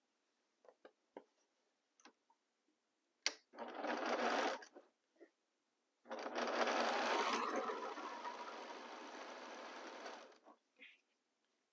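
Electric sewing machine stitching a seam in two runs: a short one of about a second, then a longer one of about four seconds that eases off toward its end. A few soft clicks of fabric handling come before, and a sharp click just before the first run.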